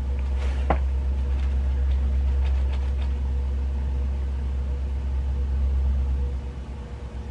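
A steady low rumble with a faint steady hum above it and a few light clicks; the rumble eases near the end.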